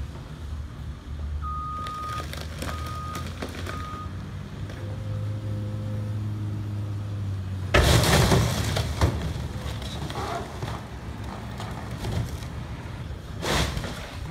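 CAT hydraulic excavator's diesel engine running under load, then about eight seconds in its bucket crashes down on a fiberglass underground fuel tank with a loud crunch of breaking fiberglass, with more cracking after and another crunch near the end. A backup alarm beeps three times about two to four seconds in.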